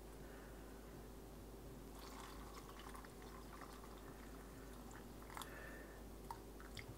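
Faint pour of hot water from a plastic food container into a silicone bowl of miso paste, with a few small drips and ticks.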